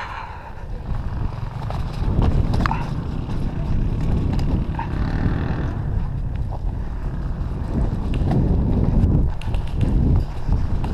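Wind and movement buffeting a body-worn GoPro's microphone: an uneven low rumble, with scattered light clicks and rustles.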